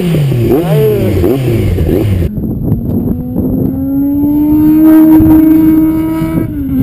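Yamaha YZF-R1 (RN01) inline-four through a Mivv GP slip-on exhaust, its engine note falling steadily in pitch over about two seconds after a run through the gears. From about halfway through, a steady drawn-out tone holds to the end.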